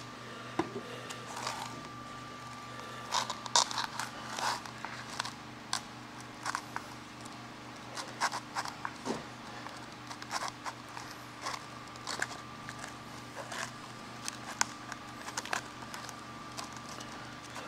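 Plastic spreader scraping and folding auto body filler with cream hardener on a cardboard mixing board: irregular scrapes and sticky clicks, over a steady background hum.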